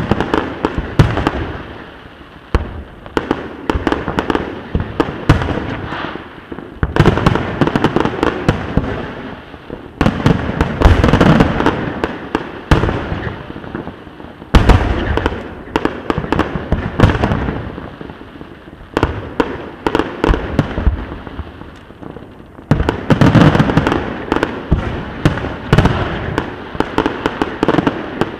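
Aerial fireworks shells bursting in rapid volleys of sharp bangs. A fresh volley starts every few seconds, and each one trails off into a rumble before the next.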